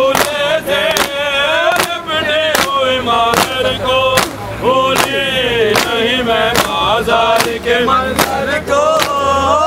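Men chanting an Urdu noha (Shia lament) over unison matam, the crowd's hands striking their chests in a steady beat: one sharp slap about every 0.8 seconds.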